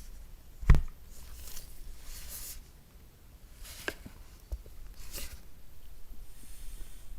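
Packaging being handled: a single thump just under a second in, then soft rustling of the packing and a few light clicks and taps.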